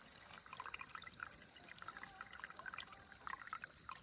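Faint trickling of shallow water, with small irregular drips and plops.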